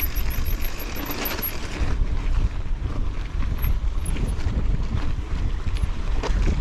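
Wind buffeting the microphone as a steady low rumble, with scattered light clicks and rattles from the mountain bike rolling over rough ground.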